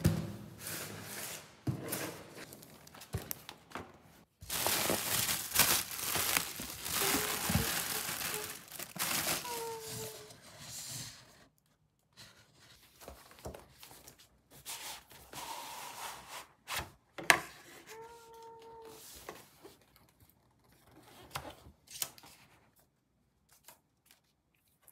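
Unboxing handling sounds: a cardboard delivery box opened, with a long stretch of tearing and crinkling packaging in the first half. Then the Magic Keyboard's box and inner packing are handled, with scattered taps and a few short squeaks as parts slide.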